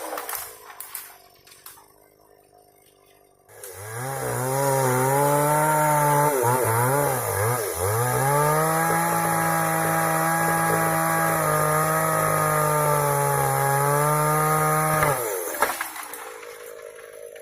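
Two-stroke chainsaw engine dropping off at the start, then revving back up after a few quiet seconds. Its pitch dips and rises a few times before it runs steadily at high speed, then it winds down near the end.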